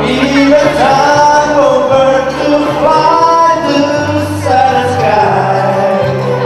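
Loud music with a man singing over a steady band accompaniment, heard in a large hall.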